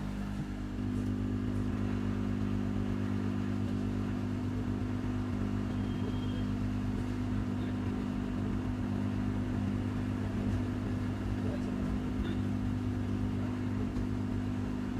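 A steady motor hum that grows louder about a second in and then holds even.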